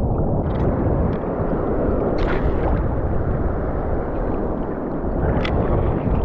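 Shallow seawater sloshing around a wading angler's legs over a steady low wind rumble on the microphone. There are a few sharper splashes, about half a second, two seconds and five and a half seconds in.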